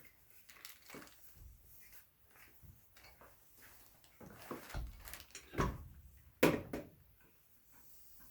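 A wagon wheel being worked and shoved onto its axle: a series of scattered knocks and handling sounds, busiest from about four seconds in, with the loudest knock about six and a half seconds in.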